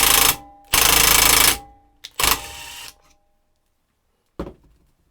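A power driver runs the M8 rivnut tool in loud bursts, stopping about a third of a second in, running again for about a second, then giving a shorter, weaker burst around two seconds in. A single sharp click follows a little after four seconds.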